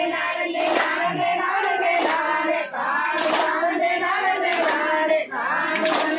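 Women singing a Tamil kummi folk song together, with the whole group clapping in unison on the beat, one clap about every second and a quarter.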